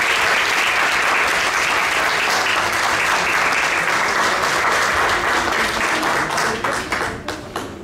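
Audience applauding. The steady clapping thins to a few scattered claps in the last second or so.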